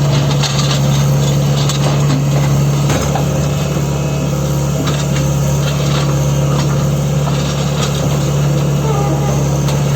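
Tata Hitachi Zaxis 120 excavator's diesel engine running at a steady speed with a constant low hum, with a few faint clicks in the first couple of seconds.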